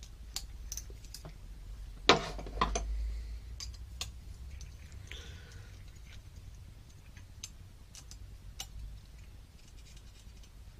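Hand tools tightening small M3 screws and nuts through a carbon-fibre frame plate: scattered light clicks and ticks of the metal drivers against screws and plate, with a louder knock about two seconds in.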